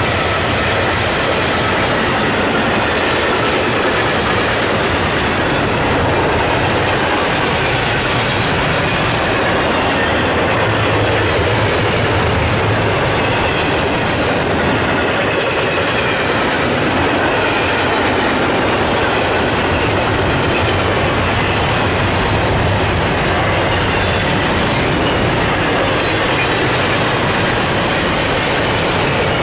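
Double-stack intermodal well cars of a fast CSX freight train rolling past at speed: steady, loud noise of steel wheels on rail. A faint high ringing from the wheels fades out within the first few seconds.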